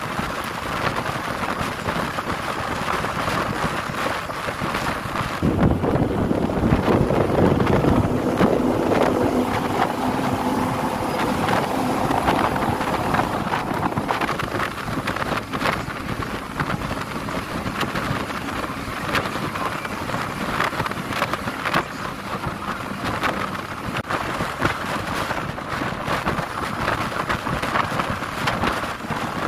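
Wind rushing over the microphone held at the window of a moving bus, mixed with the bus's engine and tyre noise on the highway.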